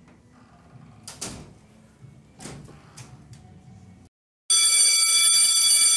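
A few quick swishes over a faint background, then after a moment of dead silence a loud, steady electronic alarm-like buzz starts about four and a half seconds in and holds.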